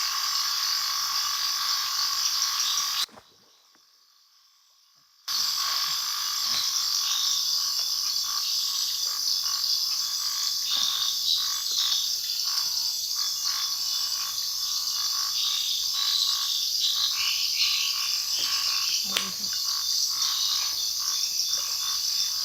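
Dense, steady night chorus of frogs calling. About three seconds in, it cuts out to near silence for roughly two seconds, then returns unchanged.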